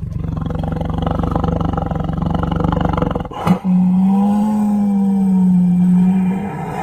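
Tiger vocalising: a low, rough growl for about three seconds, then after a brief break a longer, steadier roar that fades near the end.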